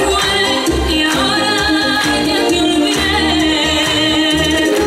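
A bachata song with singing over a steady bass beat, the music the couple is dancing to.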